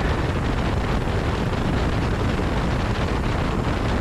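Steady wind rush on the microphone over a motorcycle's engine and tyres, cruising at highway speed.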